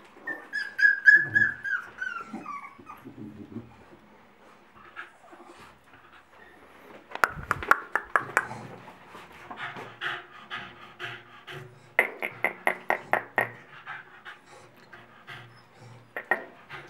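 Staffordshire bull terriers in a whelping box: a long whine falling in pitch near the start, a few knocks about seven seconds in, then quick, rhythmic panting through the second half.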